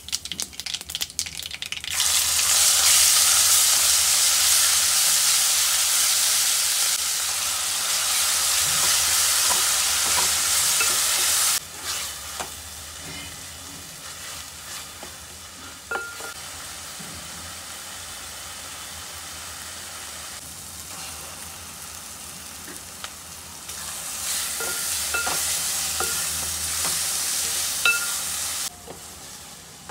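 Food frying in oil in a stainless steel pan: tempering spices crackle at first, then a loud sizzle sets in about two seconds in. Later a quieter sizzle of onion-chilli masala runs under a wooden spatula stirring and scraping against the pan, and the sizzle swells again near the end as boiled eggs are turned in the masala.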